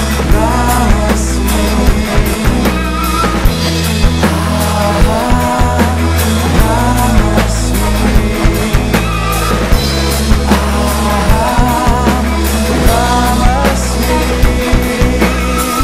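Live rock band playing, with the drum kit up close keeping a steady beat over bass, guitar and a singing voice.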